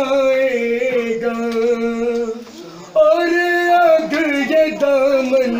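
A man's voice chanting a noha, a Shia mourning lament, in two long phrases with drawn-out held notes and a short break about two and a half seconds in.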